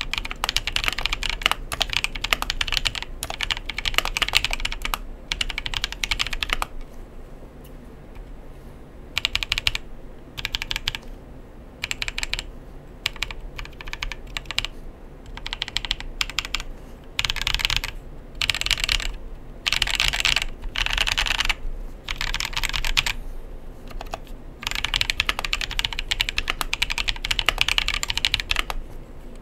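Typing on a KBDfans 60% custom mechanical keyboard with lubed Tecsee Neapolitan Ice Cream tactile switches (POM stems) and pudding keycaps. Fast runs of key clacks pause for about two seconds about seven seconds in, come back as short separate bursts, then pick up into steady fast typing again near the end.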